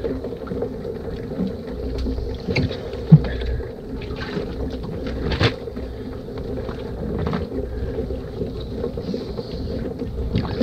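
Steady hum of the boat's idling motor, with scattered knocks and clatter from handling the crawfish trap and its catch on the deck. One sharp knock about three seconds in is the loudest.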